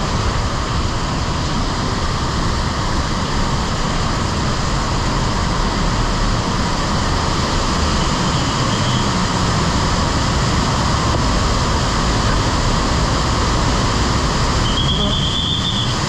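Large artificial waterfall, over 12 metres high and 400 metres wide, rushing steadily. A brief high whistle-like tone sounds near the end.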